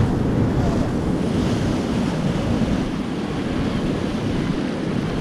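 Steady rush of river water around a raft, with wind buffeting the microphone.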